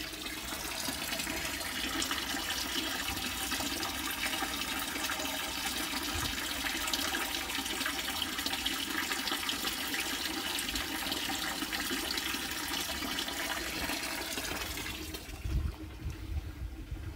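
Water splashing steadily into a fish tank, churning the surface: a continuous rushing sound that fades out about fifteen seconds in.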